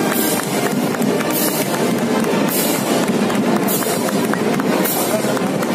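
Live band music with a steady beat, a bright crash-like accent repeating about every second and a quarter.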